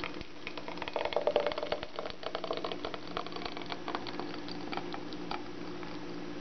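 Thick, hot lemon curd poured in a stream into a glass jar, landing with dense wet crackling and spattering that is loudest about a second in and dies away after about five seconds. A steady low hum runs underneath.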